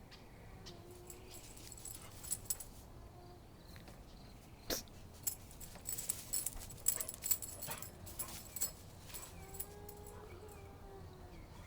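Dog whining softly in a few faint, thin, drawn-out whimpers, with scattered sharp clicks and rattles around it.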